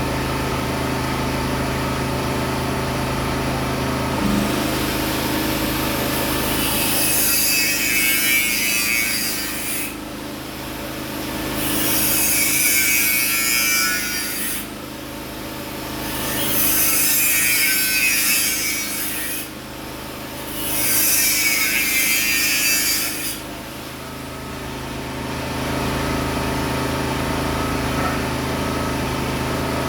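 A power tool biting into material in four passes of about three seconds each, over a steady engine hum.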